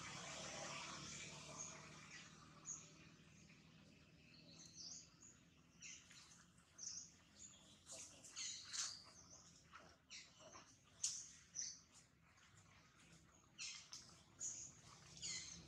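Faint birds chirping in the background: short high calls on and off, closer together in the second half.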